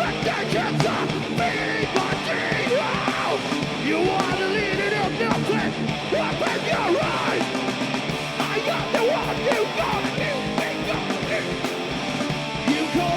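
Live punk/metal band playing loud and continuous, with drums, guitars and shouted vocals.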